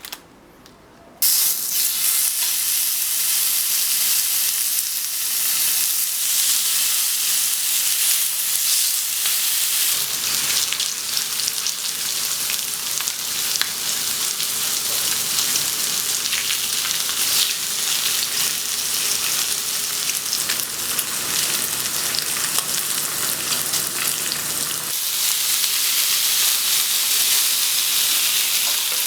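Slices of pork belly and pork neck sizzling in fat on a hot pan: a steady sizzle full of small crackling pops that starts abruptly about a second in.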